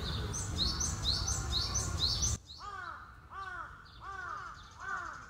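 Birdsong from a phone field recording of a male Japanese robin's song. First comes a quick run of high, upswept notes over a low rumble. After an abrupt cut about two and a half seconds in, a steady series of lower, arched notes follows at roughly two a second.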